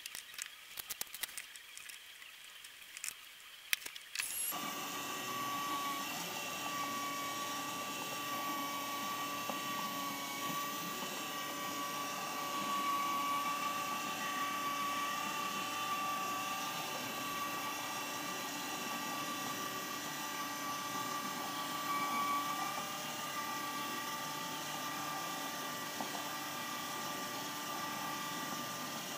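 A few handling clicks, then about four seconds in a small DC gear motor starts driving a cycloid drawing machine's plastic gears and linkage, running with a steady whine.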